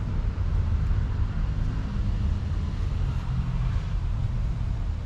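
Steady low background rumble, with no distinct event standing out.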